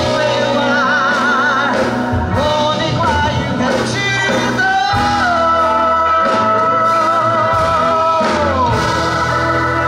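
A woman singing a slow blues song with a live band: a wavering line with vibrato early on, then one long held note from about halfway through that slides down near the end, over keyboard, electric guitar, bass and drums.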